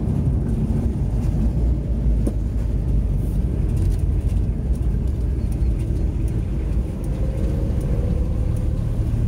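Engine and road noise inside a moving car's cabin: a steady low rumble, with a faint whine coming in near the end.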